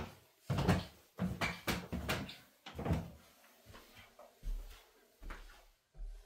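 Footsteps walking across a wood-block floor, a regular series of knocks about one or two a second. After about three seconds they grow fainter, with a few dull low thumps near the end.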